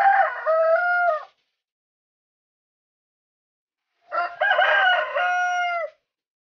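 A rooster crowing twice, about four seconds apart. Each crow lasts one and a half to two seconds and ends in a drawn-out note that drops in pitch at the end.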